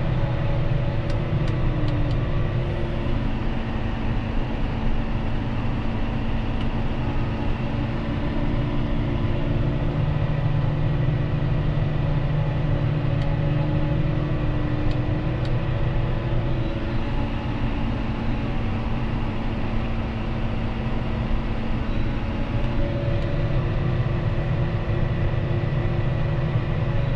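John Deere 6215R tractor's diesel engine running steadily under working load, a continuous drone with steady tones throughout.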